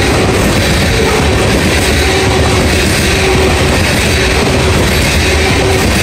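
Loaded coal hopper cars of a freight train rolling past fast: a steady loud rumble of steel wheels on the rails with a light clickety-clack of wheels over rail joints.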